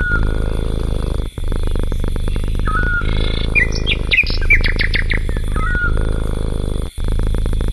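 Small songbirds chirping in short, quick calls, a hooked chirp coming back every few seconds and a rapid run of chirps in the middle, over a steady low rumble that breaks off briefly every two to three seconds.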